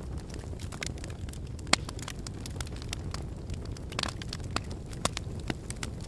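Log fire crackling in a fireplace: scattered snaps and pops over a steady low rumble, with one loud sharp pop a little under two seconds in and another near five seconds.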